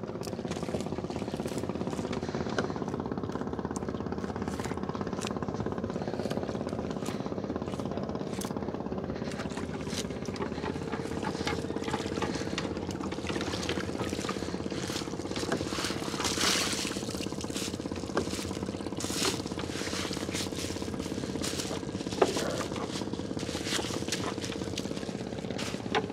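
A small boat engine running steadily with a fast, even putter; its tone shifts up slightly about eleven seconds in. Scattered short clicks and knocks sound over it.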